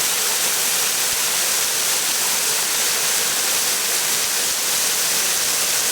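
Waterfall pouring down rock into a plunge pool, heard close up as a steady, even rush of water.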